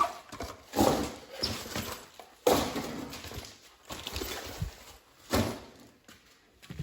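Cardboard tool-kit packaging being handled and cleared away: three main rustling, scraping bursts with small knocks between.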